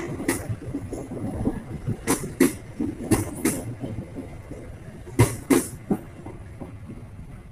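Passenger train coaches rolling past, their wheels knocking over the rail joints in pairs of clacks, one pair every second or two over a steady rumble. The clatter dies away after about six seconds.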